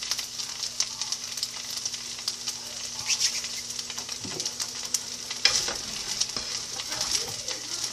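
Food sizzling in a hot frying pan: a steady hiss full of small crackles and pops, with one louder knock about five and a half seconds in.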